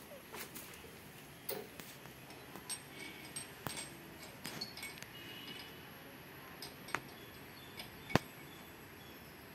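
Scattered light metallic clicks and clinks from hands working at the engine side of a parked 1969 Royal Enfield Bullet 350, with the engine still off, as it is readied for a cold start. A few sandal footsteps on gravel come first, and the sharpest clicks come about seven and eight seconds in.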